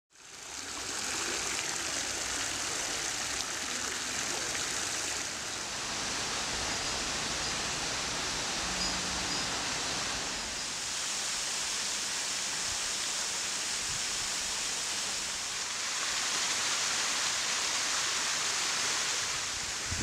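Steady rush of flowing water, like a stream, fading in at the start and shifting slightly in level and tone a few times.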